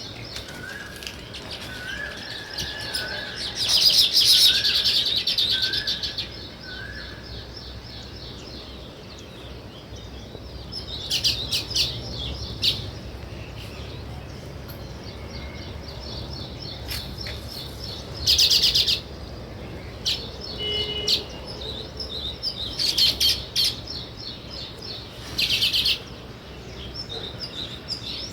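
House sparrows chirping steadily, broken by several loud bursts of rapid, chattering chirps. In the first few seconds a short rising note repeats about once a second underneath.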